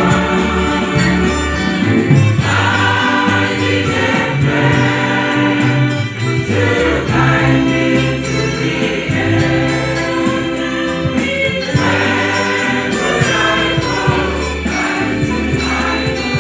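Large church choir of men's and women's voices singing an old-time gospel hymn in harmony, with strong low bass parts and long held chords.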